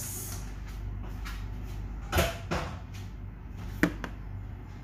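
Kitchen cupboard and dishes being handled while a bowl of flour is fetched: a few scattered knocks and clunks, the sharpest just under four seconds in, over a steady low hum.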